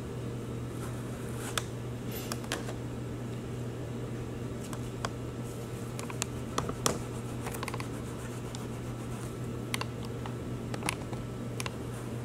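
Steady low room hum, with scattered light clicks and taps as wet gauze pads are picked from plastic containers and rubbed along a foam pool-noodle model.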